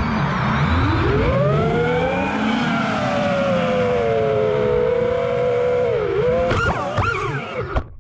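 FPV quadcopter's brushless motors whining, the pitch dipping, climbing and easing off with throttle, then surging sharply near the end. The whine cuts out with a few knocks as the quad tumbles into the grass.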